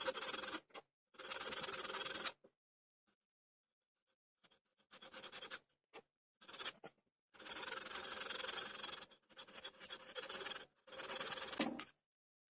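Hand work scratching on wood, in strokes of half a second to two seconds separated by silent gaps.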